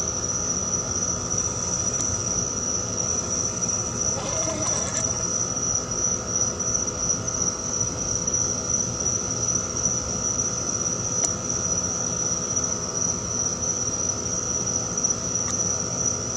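Crickets chirring at night in one continuous high-pitched trill, with a fainter steady drone lower down.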